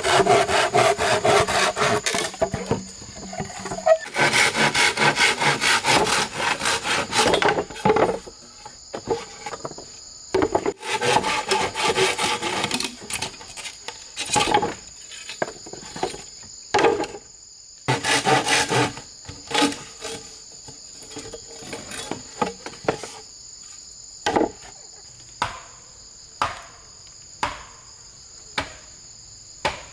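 Hand saw cutting bamboo with fast back-and-forth strokes in two spells, then single sharp blows on wood about once a second. A steady high drone of rainforest insects runs underneath.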